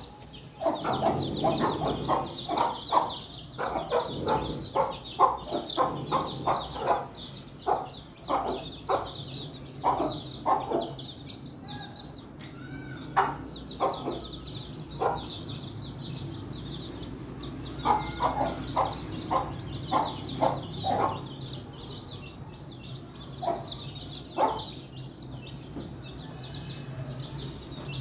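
Aseel hens clucking in short, repeated runs of notes, with a few quieter pauses, while their chicks keep up a steady high-pitched peeping.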